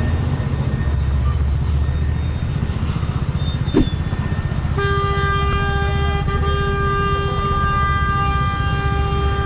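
A vehicle horn sounded in one long steady blast of about five seconds, starting about halfway through, over the low running of a motorcycle engine.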